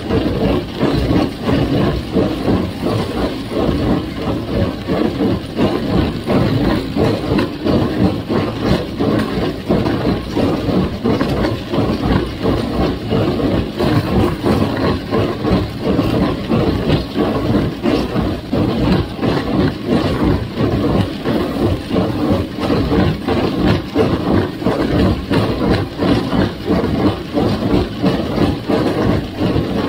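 A 1958 Farmall 350's four-cylinder gas engine running steadily, with a rapid uneven pulsing and mechanical clatter throughout.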